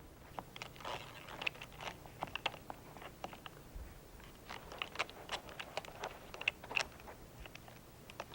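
Gear being handled and packed: irregular small clicks, crinkles and knocks, a few a second.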